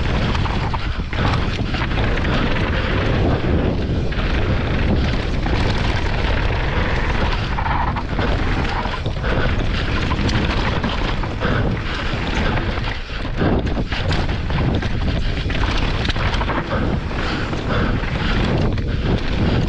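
Yeti SB165 full-suspension mountain bike ridden fast down a dusty, rocky dirt trail: wind rushing over the camera microphone and tyres rumbling over the ground, with frequent short knocks and rattles from the bike over bumps and roots.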